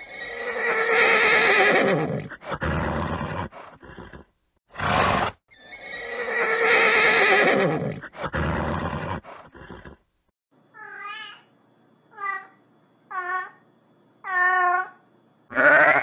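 Horse neighing: a long whinny that falls in pitch at the start and again about six seconds later, with a short sharp snort between them. Four shorter, quavering calls follow in the second half.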